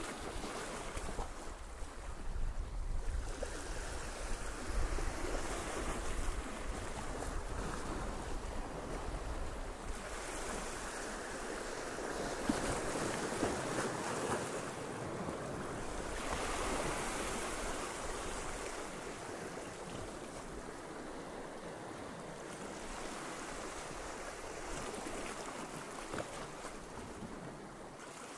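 Sea waves breaking and washing over rocks, the surf swelling and ebbing in slow surges, fullest about halfway through.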